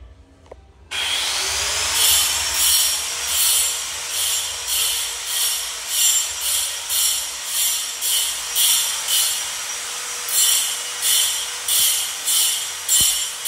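A power tool starts about a second in, its motor whine rising briefly and then holding steady. It then works in regular rasping strokes about one and a half times a second, with a short pause before the strokes resume.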